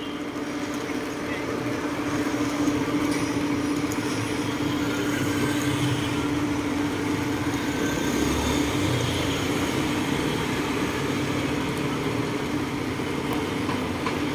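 Steady vehicle and road traffic noise with a continuous hum.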